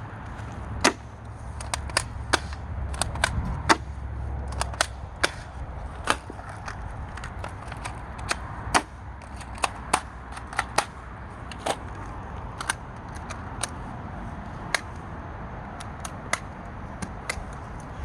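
Repeated sharp knocks at an irregular pace of about one to two a second: a hand tool pounding and mashing a mix of chocolate, dirt and grass.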